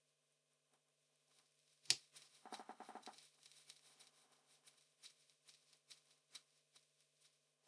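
Small handling noises as a brush cap is fitted over the carbon-brush spring in an old animal clipper's motor housing. A sharp click about two seconds in, then a short rapid rattle, then light scattered ticks as the cap is turned down by hand.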